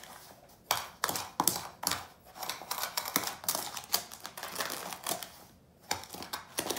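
Metal spoon stirring sugar and cinnamon in a plastic container: quick, irregular clicks and scrapes of the spoon against the container, with a short pause about five and a half seconds in.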